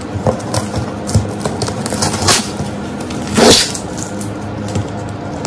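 Scissors cutting and scraping through the packing tape on a cardboard parcel: a run of small clicks and rustles, with a louder rasp a little over two seconds in and the loudest one about three and a half seconds in.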